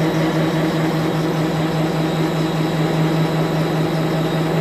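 Drive motor of an SCMI Assembla E case clamp running steadily as the upper pressure beam travels down: an even, loud hum with a clear, constant pitch.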